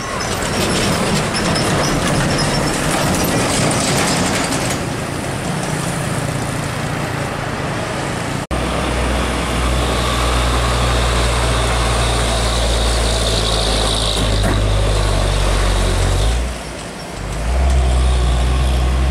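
Heavy diesel box trucks passing close through a sharp bend, engines running under load with tyre and road noise. First comes a Hino 500, then, after an abrupt cut about eight seconds in, a steady low engine drone from another truck.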